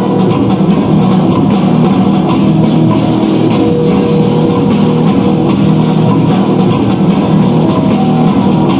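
Loud, steady music with guitar and a drum kit, with a rock feel, playing without a break.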